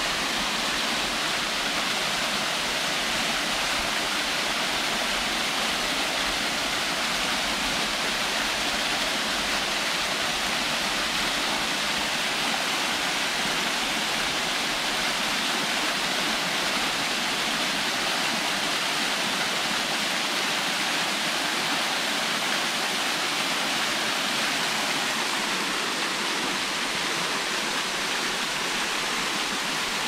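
Small waterfall with little water running, a steady, even splashing of falling water that does not change.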